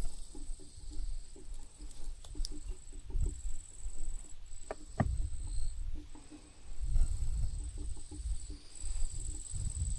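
A high, thin insect trill, steady but broken by short pauses, over low rumble and scattered light clicks and rustles, with one sharper click about halfway through.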